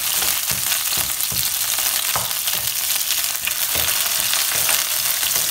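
Curry leaves and slit green and red chillies sizzling and crackling in hot coconut oil in a non-stick kadai, while a wooden spatula stirs them, scraping and knocking against the pan every second or so.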